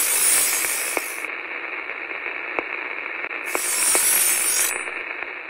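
Static hiss with a few faint clicks, a glitch sound effect. Twice the hiss turns duller as its top end cuts out.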